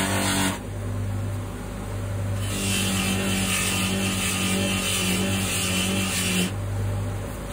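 Bench buffing wheel motor running with a steady hum, with the hissing rasp of a metal part being pressed against the wheel at the very start and again for about four seconds in the middle.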